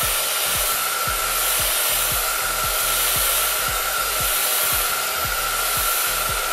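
Handheld hair dryer running on its low setting: a steady rush of air with a thin, steady whine.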